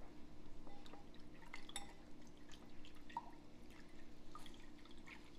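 Water dripping and splashing in small irregular drops as soaked dried mushrooms are squeezed out by hand, over a faint steady hum.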